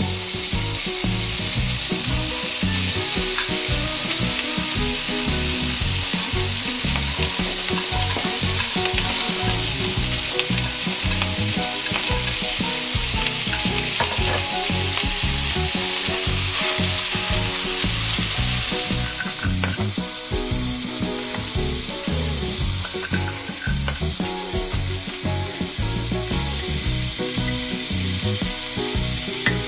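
Bacon and whole garlic cloves sizzling as they are stir-fried with tongs in a hot nonstick wok, a steady frying hiss; near the end, garlic chives are in the pan frying with them.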